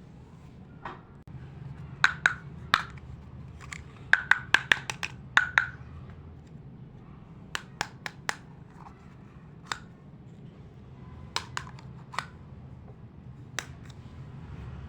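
Small plastic toy kitchen pieces being handled, making sharp clicks and taps, some with a brief ring, in an irregular series with a quick run of clicks about four seconds in. A faint steady low hum runs underneath.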